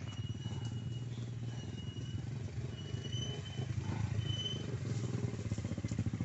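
Two 125 cc trail dirt bikes running at low speed as they climb a forest trail, their engines growing a little louder as they come closer.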